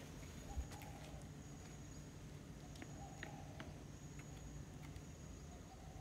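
Faint tropical forest ambience: a steady high insect whine with a few soft scattered ticks and faint distant calls, and a single low thump about half a second in.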